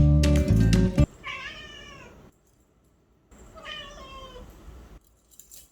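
Guitar music cuts off about a second in, then a Siamese cat meows twice, two drawn-out meows a couple of seconds apart.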